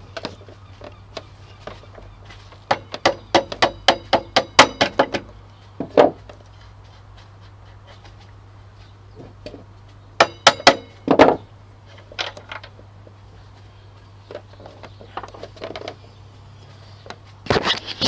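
Soft-faced hammer striking the end of a motorcycle's front wheel axle to knock it through the forks: a quick run of about ten sharp knocks a few seconds in, a single knock after it, and a few more near the middle.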